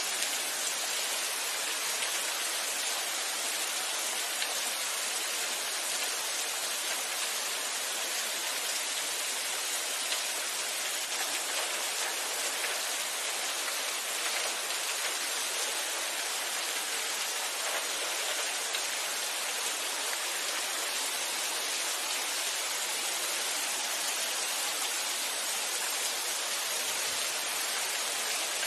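Steady rain falling: an even, unbroken hiss, strongest in the high range, with no pauses or changes.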